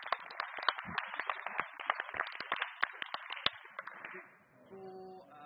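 Audience applauding, with many quick hand claps that die away about four seconds in.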